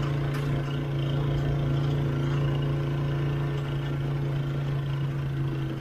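Vehicle engine running steadily at cruising speed as a hum that holds one pitch, over low wind noise from travelling along the road.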